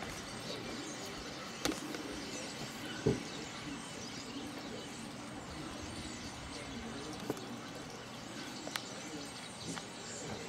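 A flock of several hundred common starlings chattering together in a roost tree: a dense, continuous mass of many short overlapping calls. A few sharp knocks cut through, the loudest about three seconds in.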